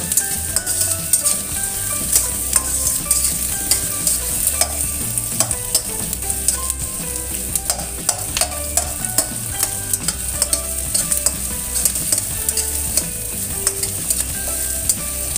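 Chopped shallots, garlic and onion sizzling in hot oil in a stainless steel wok, stirred with a spatula that clicks and scrapes against the pan many times throughout.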